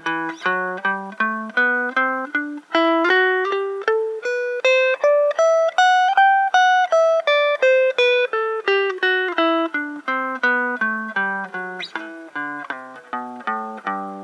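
Stratocaster-style electric guitar playing a three-octave G major scale one picked note at a time, about three notes a second: it climbs to its highest note about six seconds in, then steps back down and ends on a low note left ringing.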